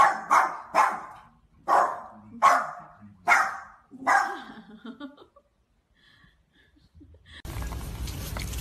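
Small white fluffy dog barking about seven times in the first four seconds, the barks spaced further apart as they go, then falling quiet. Near the end a steady hiss comes in.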